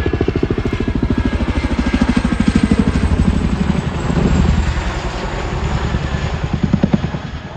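Boeing Chinook twin-rotor helicopter's rotor blades beating in a fast, even, heavy chop, loud and easing off slightly near the end.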